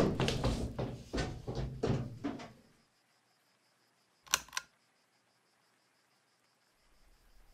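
A quick run of knocks and thuds for about two and a half seconds, then near silence with a faint, high, rapidly pulsing tone. About four seconds in come two sharp clicks, a quarter of a second apart.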